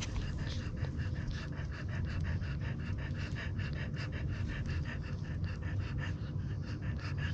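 French Bulldog mother panting rapidly and evenly while nursing her newborn litter, about five breaths a second.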